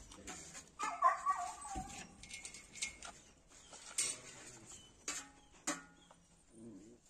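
A dog whines briefly about a second in, followed by a few sharp scrapes and knocks of a poop scoop working over sandy ground.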